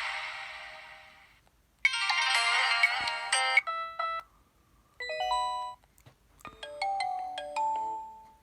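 Preloaded ringtones playing from a ZTE Z222 phone's speaker. One tone fades out, then short electronic melodies start about two seconds in, in a few phrases with brief pauses between them.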